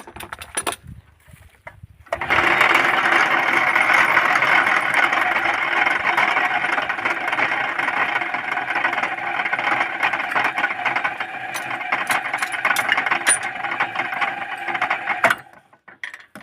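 Electric arc welding: a steady crackling and sizzling arc that strikes up sharply about two seconds in, burns for about thirteen seconds, then cuts off.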